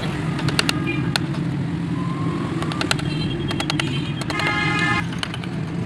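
Steady street traffic rumble, with a horn-like tone sounding briefly about four seconds in. Over it come sharp clicks and taps of a hand chisel cutting and prying chips from a carved wooden panel.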